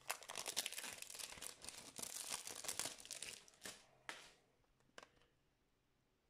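Plastic shrink wrap on a CD jewel case crinkling as hands grip and turn the case. The crackling is dense for about the first three and a half seconds, then comes a short crackle and a faint click before it goes quiet.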